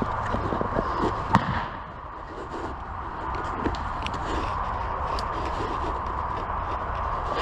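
Airsoft gunfire: scattered pops and clicks, with one sharp, loud snap about a second and a half in.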